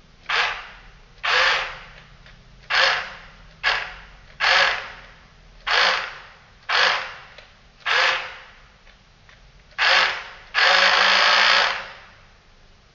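The two small motors of a model boat's twin-motor drive spinning its propellers in air, switched on in about ten short bursts. Each is a whirr that starts sharply and fades as the propellers spin down, and the last is held steady for about a second.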